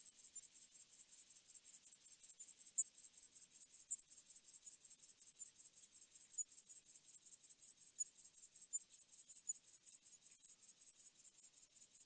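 Grasshopper stridulating: an unbroken, evenly spaced train of high-pitched chirps, several a second.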